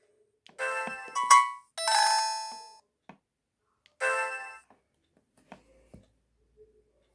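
Samsung SGH-Z240 mobile phone playing a short bell-like chime tone through its small speaker: a few clusters of ringing notes that die away, then one more chime about four seconds in. Faint clicks follow near the end.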